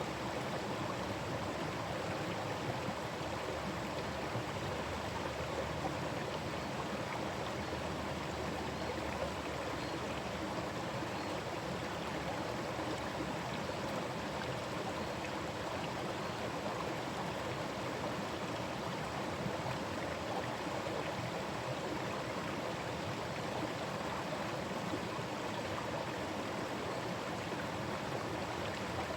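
Forest stream running over its bed, a steady rushing and babbling of water.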